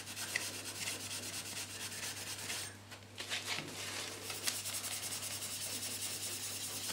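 Scotch-Brite abrasive pad scrubbing back and forth on a copper water pipe in rapid scratchy strokes, with a short pause about three seconds in. The pipe is being cleaned to bright metal so the earth bonding clamp makes a good connection.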